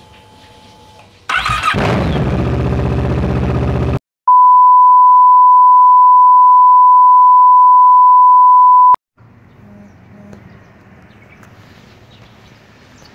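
Yamaha MT-09 three-cylinder engine starting and running loudly for about three seconds before cutting off abruptly. Then a loud, steady, single-pitched high beep tone holds for about five seconds and stops suddenly, followed by a faint low engine hum.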